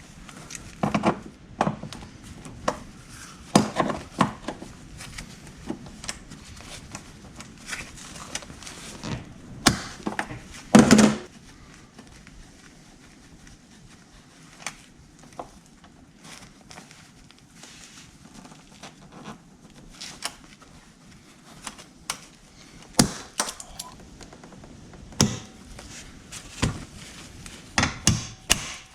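Irregular knocks and clicks of hand tools working a rusted, seized fastener on a vintage snowmobile. The loudest knocks come about four seconds in and again around eleven seconds in.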